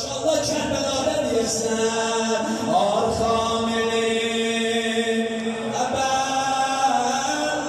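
A man chanting a Persian religious lament into a microphone, his amplified voice holding long notes that slide from one pitch to the next.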